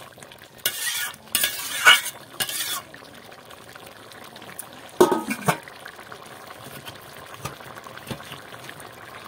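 Metal ladle stirring and scraping through thick vegetable curry in a metal pot for the first few seconds, then a short metallic clatter about five seconds in, over a steady low hiss.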